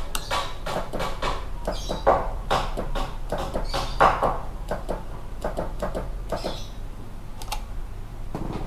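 An irregular series of light clicks and knocks over a steady low hum.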